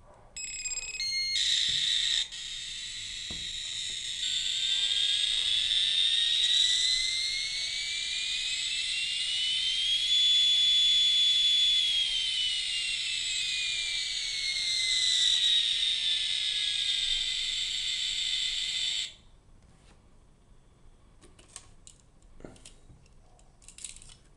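Battery-operated sound chip of a vintage 1980s F-14 Tomcat toy key chain playing its electronic sound effect. A few quick beeps open it, then a buzzy electronic whine rises in pitch over several seconds, holds, falls back and cuts off suddenly. Light clicks of the toy being handled follow.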